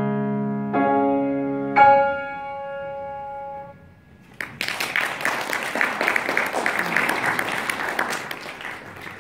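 Grand piano playing the closing chords of a piece. The last, loudest chord rings for about two seconds before it is released. After a brief pause an audience applauds, fading toward the end.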